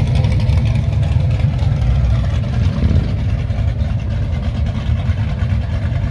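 Car engines running at low speed, a steady deep exhaust rumble as cars roll slowly past.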